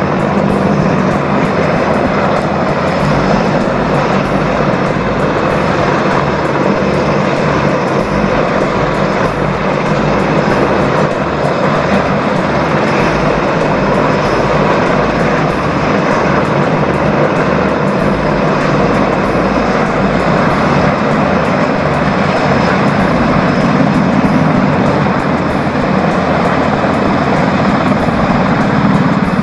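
Mil Mi-26 heavy helicopter hovering low: a loud, steady din of its big rotor and twin turboshaft engines, with a low uneven pulsing from the rotor underneath.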